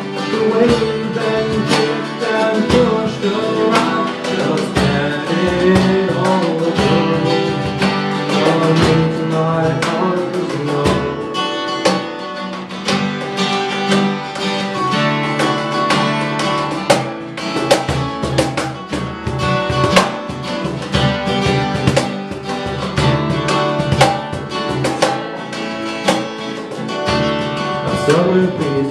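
Several acoustic guitars strummed together in a country-folk song, with a steady strumming rhythm.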